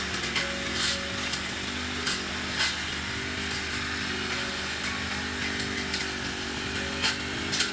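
Small petrol engine of outdoor power equipment running steadily, with scattered sharp ticks and clicks over it.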